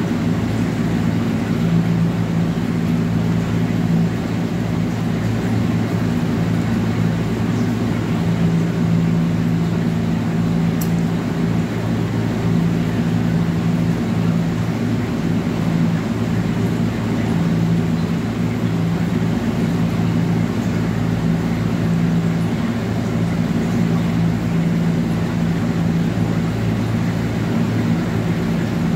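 A steady, loud, low mechanical hum that does not change.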